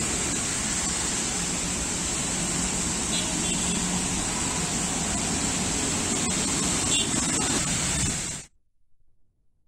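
Steady hiss of rain falling on a wet city road, mixed with passing motor traffic. It cuts off suddenly about eight and a half seconds in.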